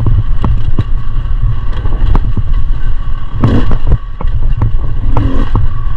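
Dirt bike engine running at steady revs on a rough trail, with heavy wind rumble on the microphone and frequent sharp knocks and clatter from the bike over rocks and roots.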